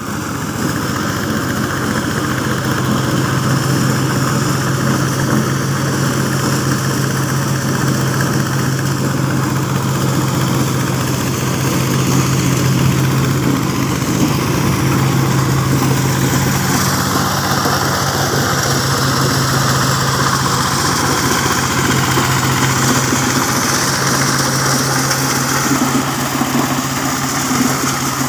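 Motorised corn sheller with twin blowers running steadily: a constant engine hum under a continuous whirring rush from the threshing drum and fans.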